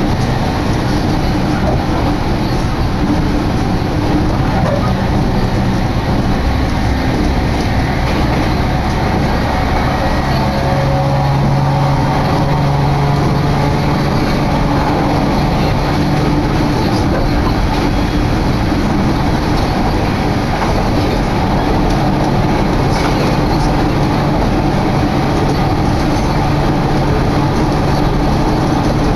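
Electric train running, heard from inside the passenger car: a steady rumble of wheels on rail, with a low hum that joins about ten seconds in and holds.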